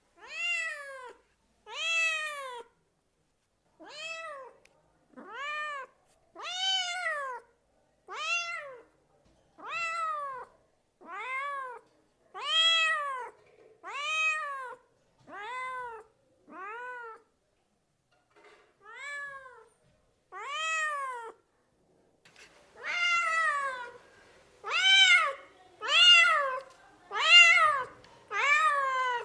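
Domestic cat meowing over and over, about twenty meows each under a second long, every one rising then falling in pitch. The meows grow louder near the end.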